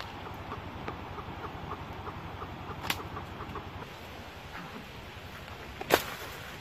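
Francolin giving a rapid series of short clucking calls, about four a second, thinning out after the middle. A sharp snap comes about three seconds in and a louder one near the end.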